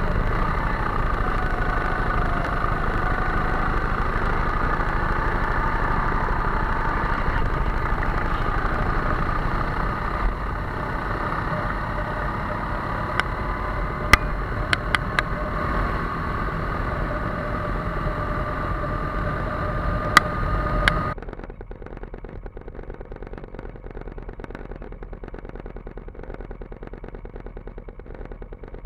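Go-kart engines running, several engine notes rising and falling in pitch, with a few sharp clicks. About two-thirds of the way through the sound drops abruptly to a quieter, duller engine hum.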